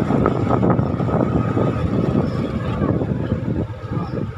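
Motorcycle engine running at low road speed, with wind buffeting the microphone; the sound drops somewhat near the end as the bike slows.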